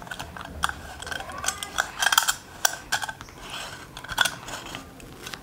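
Metal back cap of a torch being screwed onto its body: irregular light scraping clicks of the threads and small metal knocks as the cap is turned by hand.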